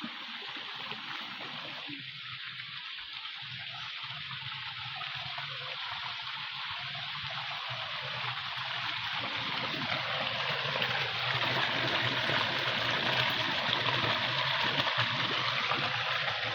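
River water rushing steadily over its bed, growing louder about halfway through.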